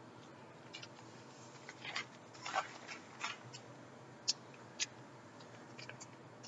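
Quiet handling of a small plastic packet of colored sand being poured through a funnel into a plastic sand-art bottle: scattered light clicks and a few brief rustles, most of them about two to three and a half seconds in.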